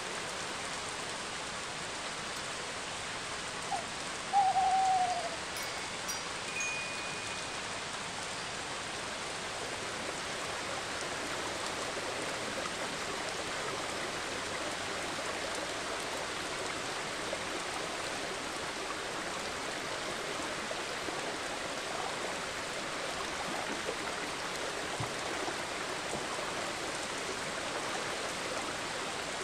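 Steady, even hiss like rain, with one short owl hoot about four seconds in. A faint thin high tone follows a couple of seconds later.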